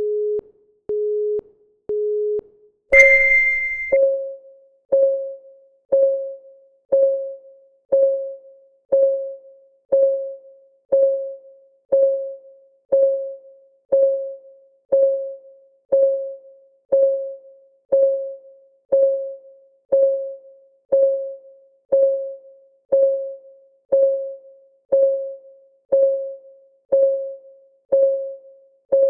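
Countdown timer's electronic sounds: three short low beeps a second apart, then a louder, higher beep about three seconds in, followed by a steady synthetic clock tick once a second, each tick a short pitched tone that fades quickly.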